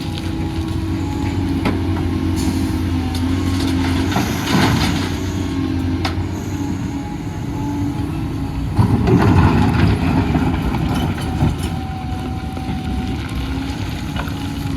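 Doosan DX250 excavator's diesel engine running steadily while working, with a louder noisy surge about four and a half seconds in and a longer, louder one around nine to ten seconds in.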